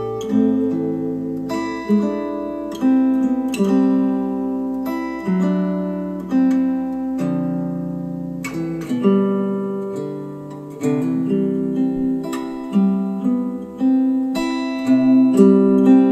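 Acoustic guitar music played back through hi-fi bookshelf speakers: plucked notes and chords, each starting sharply and fading, about one a second.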